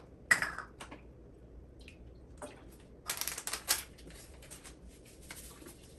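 Packet of foaming toilet-cleaner powder being opened and emptied into the toilet bowl: a short crackle near the start, scattered small clicks and rustles, and a cluster of crinkly rustling about three seconds in.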